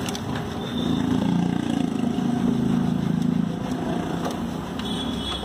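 A motor vehicle engine running close by. Its low hum swells about a second in and eases off after about three and a half seconds.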